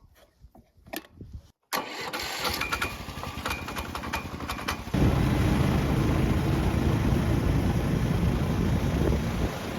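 Small engine of a motorized snow tow (motosobaka) being started: a few seconds of rough cranking, then it catches about halfway through and runs loudly and steadily, easing off to a lower level near the end.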